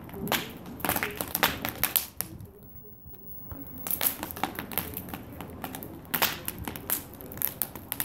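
Old fence and summerhouse wood burning fiercely in a galvanised garden incinerator bin, crackling with irregular sharp pops. The pops die down for about a second in the middle, then pick up again.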